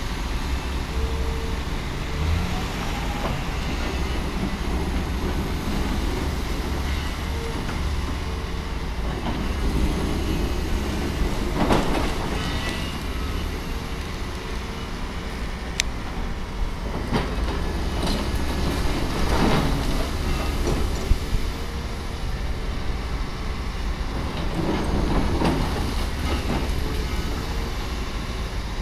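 Volvo tracked excavator running steadily as it tears down a brick building, with bricks and rubble crashing and clattering down several times, loudest about halfway through and again toward the end.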